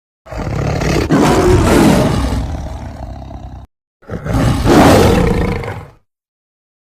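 Two deep, rough creature roars in the style of a big cat, a sound effect for a tiger-like beast. The first lasts about three seconds, with a sharp click about a second in. The second is shorter and starts about four seconds in. Each cuts off into dead silence.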